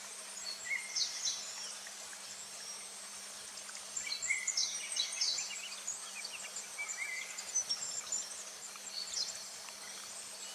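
Summer forest ambience: short bursts of high bird chirps, clustered about a second in and again from about four to five and a half seconds, over a steady background of insect buzzing.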